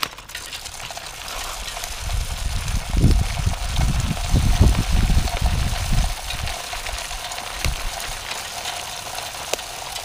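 Mixed birdseed pouring from a paper bag into a plastic bird feeder, a steady rushing hiss of seeds with scattered ticks as loose seeds land on concrete. A low rumble swells under it between about two and six seconds in.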